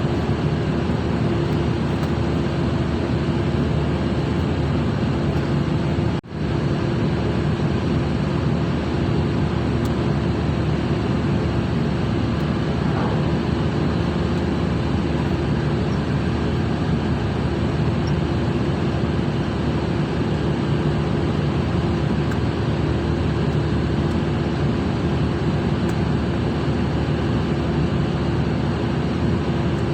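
Ship's machinery running: a steady mechanical drone with a constant hum, which cuts out for an instant about six seconds in.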